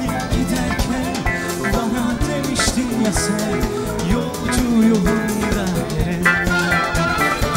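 Live pop band music with drums and guitar, and a male voice singing the melody over it.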